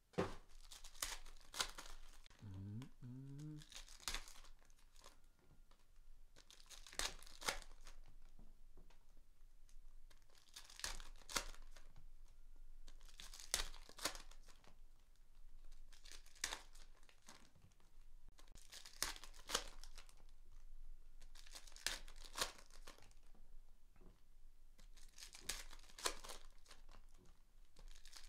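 Optic basketball card packs being torn open and their wrappers crinkled, in short bursts every two to four seconds.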